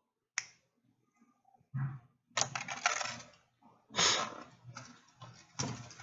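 Small metal coil-building tools and wire being handled: a sharp click, then several bouts of metallic clinking and rattling against a hard surface.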